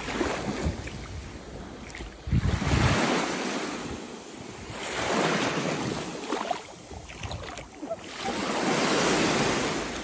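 Small waves washing up over the sand at the shoreline, swelling and fading about four times. Wind rumbles on the microphone during the first few seconds.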